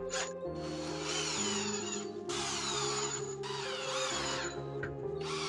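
Background music, with a small power tool running in bursts of about a second, its whine falling in pitch through each burst.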